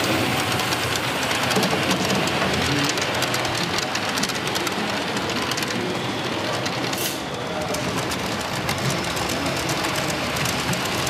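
HO scale model trains rolling across the layout's double track: a steady running noise with rapid, dense clicking of the small wheels over the rails as locomotives and wagons pass.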